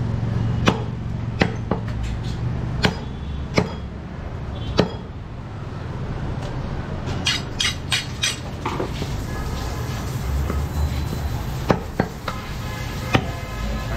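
Butcher's large knife chopping mutton against a wooden stump chopping block: a dozen or so sharp knocks at irregular intervals, with a quick run of several about seven seconds in.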